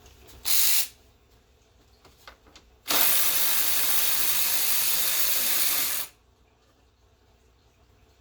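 A power tool runs in a short burst of about half a second, then steadily for about three seconds, spinning off the 10 mm nuts that hold the radiator fan assembly.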